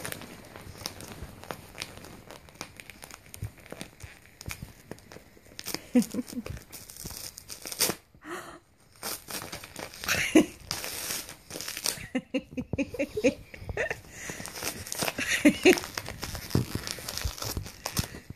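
Wrapping paper crinkling and tearing in irregular bursts as a Shih Tzu puppy chews and pulls at a wrapped present.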